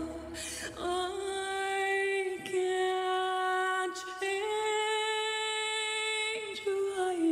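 Music with a woman's voice singing long held notes, nearly unaccompanied. The pitch steps up about a second in and again around four seconds, then falls back near the end.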